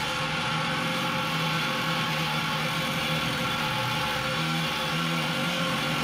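A homemade planishing hammer running steadily, rapidly hammering a sheet-metal panel held between its dies. The sound is loud and continuous, with a buzzing mechanical hum.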